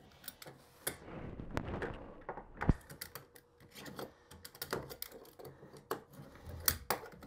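Utility knife scraping the burrs off the freshly cut edge of a drain pipe: irregular short scratchy clicks, with one sharper knock about two and a half seconds in.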